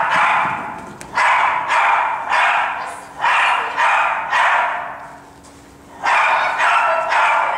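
Small dog barking repeatedly, about ten sharp barks in quick runs roughly half a second apart with a short pause about five seconds in, each bark echoing in a large hall.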